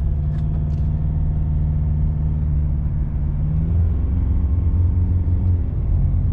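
In the cab of a ute accelerating from about 25 to 45 km/h: the engine note rises, then changes about four seconds in, and from there a low drone grows louder. The drone is the tie-down straps on the roof load starting to vibrate in the wind, which sets in at around 40 km/h.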